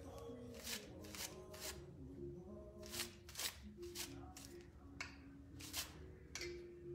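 Soft, irregular scratches and crinkles of a dye brush stroking pet hair dye into a dog's tail laid out on aluminum foil, several strokes a second, over faint background music.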